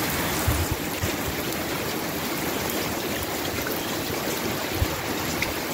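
Steady, heavy rain falling in the wind of an approaching hurricane, an even hiss of water, with a few short low thumps, one about half a second in and one near the end.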